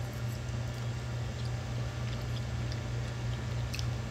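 Faint chewing and small mouth and fork clicks as people eat moonshine-soaked fruit, a few scattered ticks over a steady low hum.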